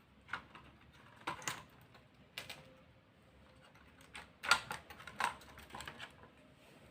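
Irregular small plastic clicks and taps of a DDR3L laptop RAM module being handled and pressed into the laptop's memory slot, the loudest about four and a half seconds in.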